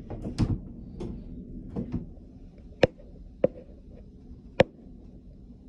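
Hotel room door, blocked from outside so it opens only a crack, knocking and rattling as it is pushed, followed by three sharp clicks in the second half.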